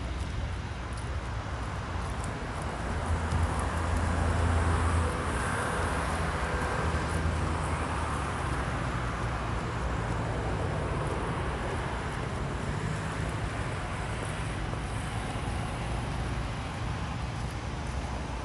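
Road traffic running steadily, with a vehicle passing close about four seconds in and the low rumble fading after it.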